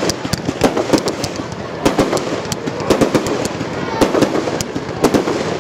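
Aerial firework shells bursting overhead: a rapid, irregular series of sharp bangs and cracks, with crowd voices underneath.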